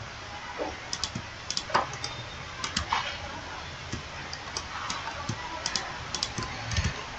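Irregular clicks of a computer mouse and keyboard keys, a few per second, over a steady low background hiss, with a soft low thump near the end.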